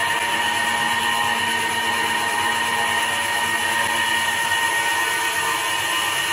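CNC wood lathe turning a wooden post at 517 rpm, its motor-driven cutting head running with a steady high whine over the noise of the wood being cut.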